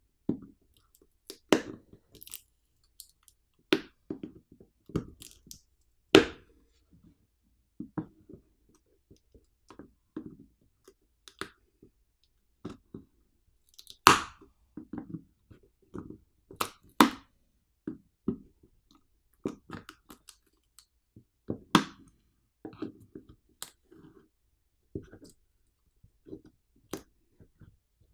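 Plastic housing of an Anker Prime 160W wall charger being cut and pried open: irregular crunching and clicking with several sharp, louder cracks scattered through.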